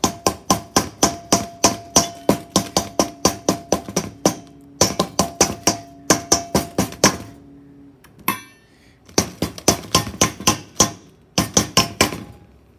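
Hand-mixer wire beater knocked rapidly against the rim of a stainless steel mixing bowl to shake off cookie dough, about four to five knocks a second in several runs with short pauses; the bowl rings briefly after each knock.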